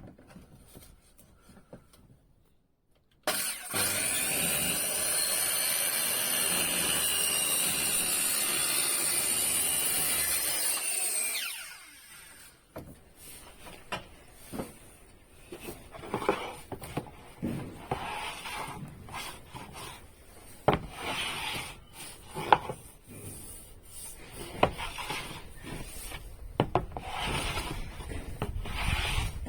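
An electric power tool cutting or working wood starts suddenly about three seconds in, runs steadily for about eight seconds, then is switched off and spins down. After that come irregular knocks, clicks and rubbing of wooden parts being handled.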